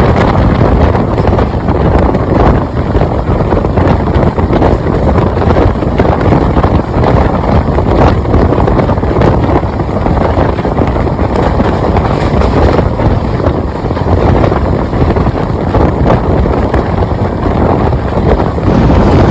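Express passenger train running, heard loud from on board: a steady rumble of the wheels on the track mixed with rushing wind on the microphone.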